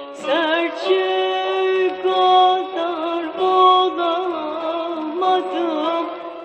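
Turkish folk song with a singer holding long, wavering, ornamented notes over instrumental backing.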